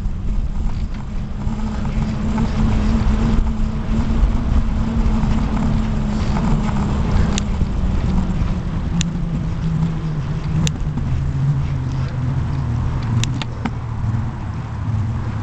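Continuous rumble of a bicycle ridden over brick paving, heard from the moving bike, with a low hum that slowly falls in pitch and a few sharp clicks in the second half.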